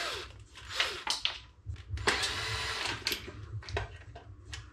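A cordless drill-driver running on screws in a plastic exercise-machine rod base, in uneven spurts.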